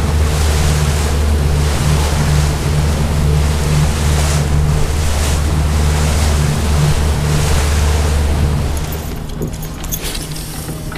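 A boat's engine runs steadily under way with the rush of wind and water from the wake. About nine seconds in this gives way to a quieter wash of wind and water.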